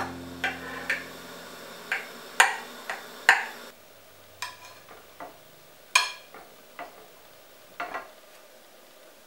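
A knife and a wooden spatula knock and clink against a ceramic baking dish as a cake is cut and a slice is levered out: about a dozen sharp, irregular taps with a few soft scrapes between them.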